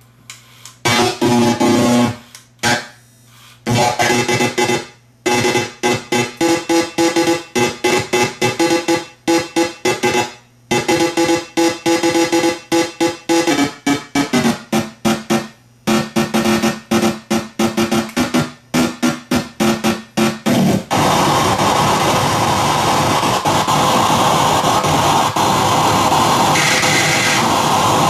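Circuit-bent Furby played through a voice-changer circuit: glitchy electronic pitched tones chopped into rapid stuttering bursts with short gaps. About 21 seconds in they give way to a continuous noisy electronic drone.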